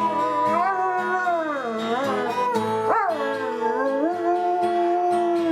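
A dog howling along to music, its pitch sliding up and down over steady held musical notes.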